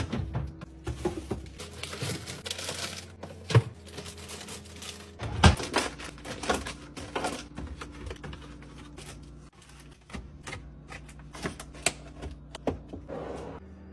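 Groceries being put away in a refrigerator: plastic juice jugs, a bag of shredded cheese and plastic deli tubs tapping and knocking as they are set on glass shelves and into plastic drawers. There are many scattered clicks, with a rustle of packaging about two seconds in and the loudest knock about five and a half seconds in.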